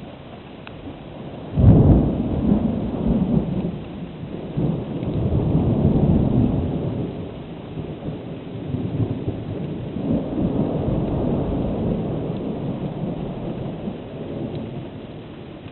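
Thunder: a sudden sharp crack about two seconds in, then long rolling rumbles that swell up again twice and slowly die away.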